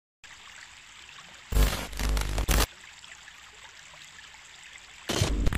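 Shallow river rushing over rocks, a steady faint wash of water. About a second and a half in, a loud burst of noise, heaviest in the low end, covers it for about a second, and another loud stretch starts just before the end.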